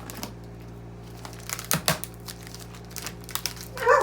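Packaging being handled while a box is unpacked: irregular crinkling and rustling, with a louder crackle about halfway through. A dog barks right at the end.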